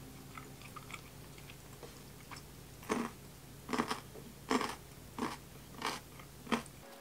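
Crunchy bites and chewing of a kohlrabi pickle: a few faint clicks, then about three seconds in six loud crunches, roughly two-thirds of a second apart.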